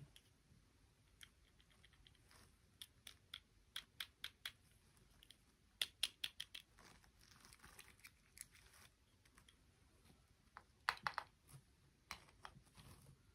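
Light clicks and taps from small objects being handled, in irregular runs with the loudest clusters about six and eleven seconds in, and a soft rustle of packaging between them.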